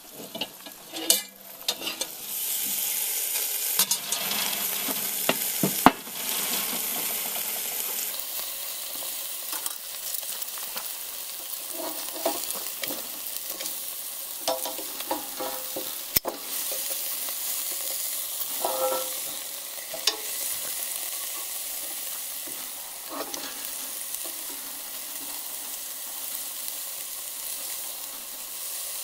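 Beef ribs sizzling on a grill inside a cast-iron camp oven, a steady hiss that grows louder about two seconds in as the lid comes off. Metal tongs clink and scrape on the grate now and then as the ribs are turned.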